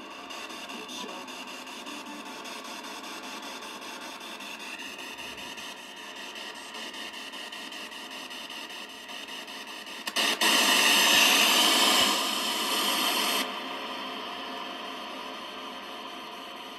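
P-SB7 spirit box sweeping, its radio static run through a digital reverb pedal and played over a small amplifier: a steady hiss that jumps much louder about ten seconds in and falls back a few seconds later.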